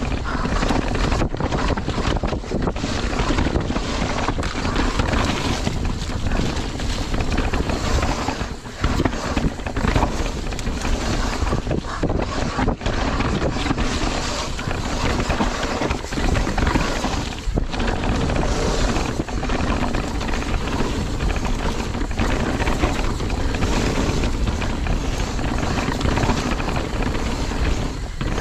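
Santa Cruz downhill mountain bike ridden fast down a dirt trail: tyres scrubbing over loose dirt and the bike knocking and rattling over bumps, with wind buffeting the microphone.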